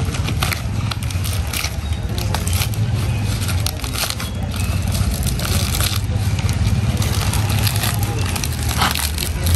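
Dry banana leaves crackling and rustling as they are folded and pressed down by hand around a pot, in many short irregular crackles over a steady low hum.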